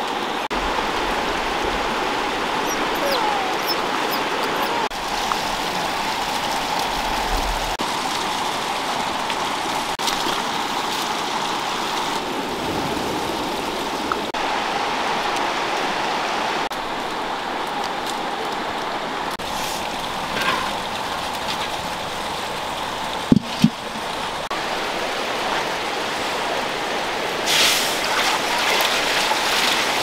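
Steady rushing of running water, with two sharp knocks in quick succession about two-thirds of the way through.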